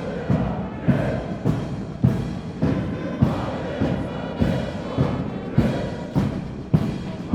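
A military band playing a march, with a strong bass drum beat falling evenly a little under twice a second.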